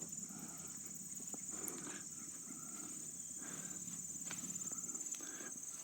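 Steady high-pitched insect chorus of crickets, with soft footsteps brushing through grass.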